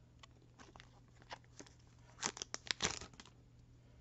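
Foil booster-pack wrapper being torn open and crinkled by hand: scattered sharp crackles, loudest in a cluster between two and three seconds in.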